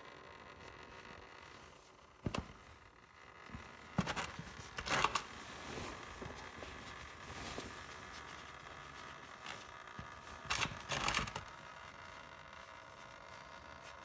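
Handling noises from tools and parts being moved: one sharp click about two seconds in, then two short spells of scraping and rustling, one about four seconds in and one near the end.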